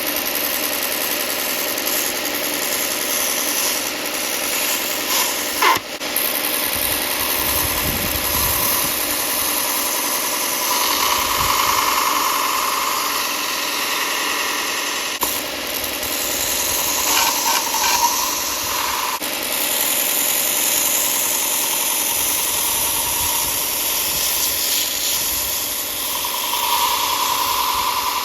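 Power sander running steadily, sanding down a foam Easter egg, with a brief sharp knock about six seconds in.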